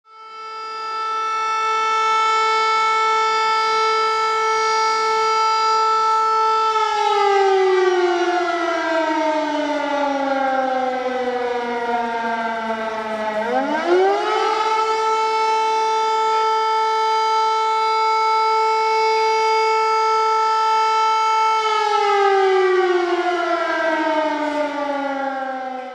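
City civil-defence sirens sounding a long tone in tribute to the fallen, not as an alarm. The tone holds steady, slides slowly down in pitch, climbs quickly back up, holds, and slides down again near the end.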